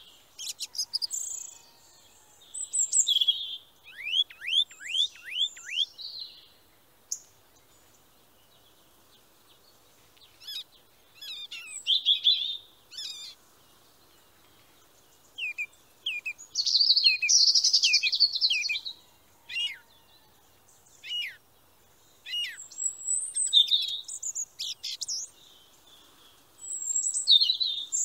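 A flock of Eurasian tree sparrows chirping, in bursts of rapid, high chirps and short trills separated by brief pauses.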